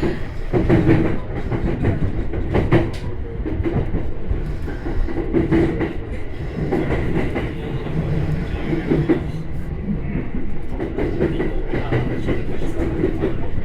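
Electric commuter train running on the rails, with steady rolling noise and now and then wheels clicking over rail joints.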